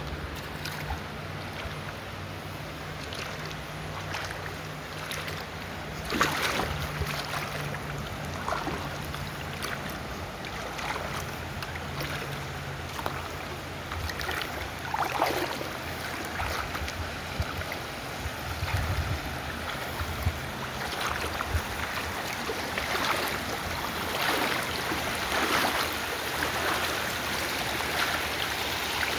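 River water rushing and splashing, a steady wash with scattered brief splashes, over a low rumble.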